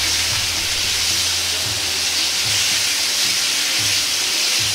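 Sliced pork belly sizzling steadily in a hot, oiled wok as it fries.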